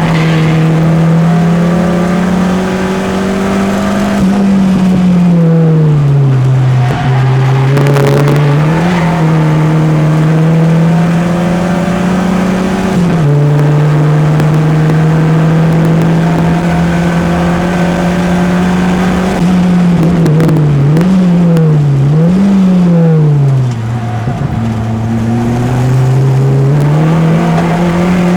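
Peugeot 205's engine running hard on a race circuit. Its revs hold steady for long stretches, fall away and climb back several times, and rise and fall quickly a few times in a row near the end.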